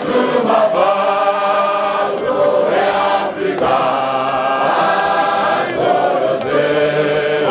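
Many voices singing a Shona hymn in unaccompanied harmony, in long held phrases with short breaks between them, with faint sharp clicks now and then.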